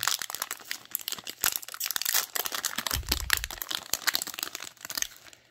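Plastic wrapper of a Topps baseball card fat pack being torn open and crinkled by hand, a dense crackling rustle that dies away near the end as the card stack comes out.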